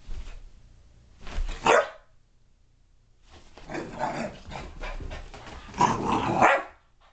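Young boxer puppy barking and growling in a burst of play: a short sound right at the start, a loud bark about a second and a half in, then a longer run of growly barking from about three seconds in, loudest near the end.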